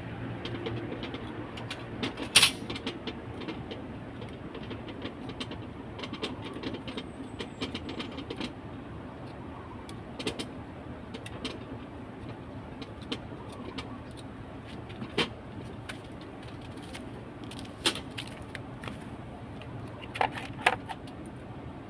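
Scattered sharp metallic clinks and knocks of hand tools and parts being handled during an air compressor repair, a few louder than the rest, over a steady low hum.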